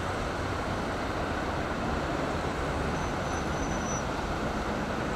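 Steady city road traffic: cars and vans driving past on a multi-lane street, an even rumble and tyre hiss.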